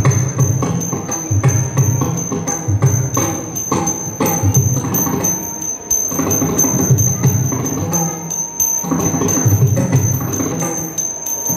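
Yakshagana percussion: maddale drum strokes under a steady, quick beat of small tala hand cymbals, with a high ringing sustained over the strikes.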